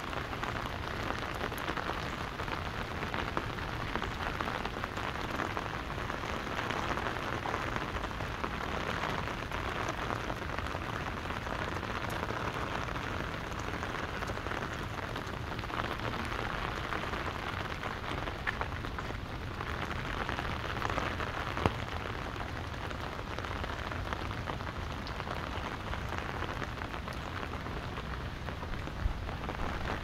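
Steady rain pattering on an umbrella held over the microphones, a dense patter of drops with a low wind rumble underneath. One sharper tap stands out about twenty-two seconds in.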